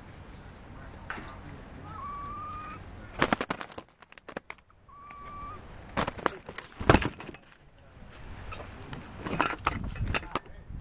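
Two short whistled calls about two and five seconds in, and between and after them a run of sharp knocks and clattering, loudest about seven seconds in, from the camera being knocked about on a wooden platform.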